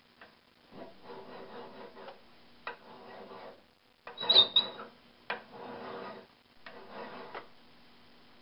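Sharp steel hand file cutting a piece of steel held in a vise: about five forward strokes, each around a second long, biting into the metal with ease. The stroke about four seconds in is louder, with a short metallic clatter.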